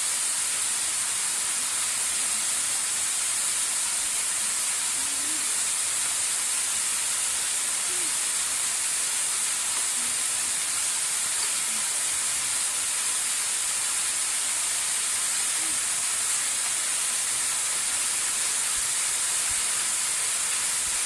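Waterfall rushing, a steady even hiss of falling water that does not change.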